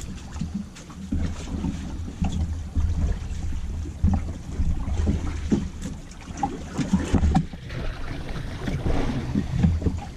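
Wind buffeting the microphone on a small boat, with irregular knocks and rattles from wire-mesh prawn traps being handled at the gunwale.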